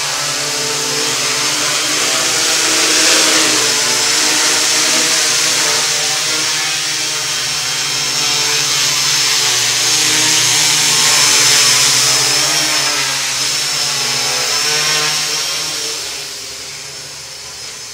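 Quadcopter's four KDA 20-28M brushless motors spinning 10-inch Gaui props in hover, a steady multi-toned buzz with a high whine. It swells and eases twice as the craft moves about, then fades near the end as it flies away.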